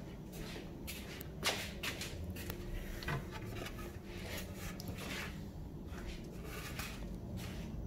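Wooden boards being handled and shifted from a scrap pile, rubbing and knocking lightly against each other, with one louder knock about a second and a half in.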